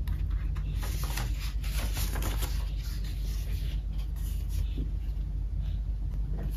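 Sheets of drawing paper rustling and sliding as they are handled by hand, a cluster of crisp rustles in the first three seconds and a few fainter ones later, over a steady low hum.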